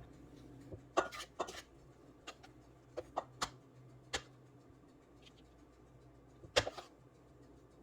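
Parchment paper handled and pressed into small metal baking pans: a scattering of short rustles and light clicks, a few at a time.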